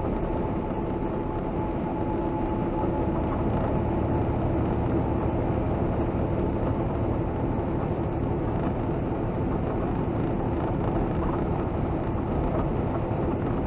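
Semi truck driving at steady highway speed, heard from inside the cab: a constant drone of engine and road noise with a faint steady whine over it.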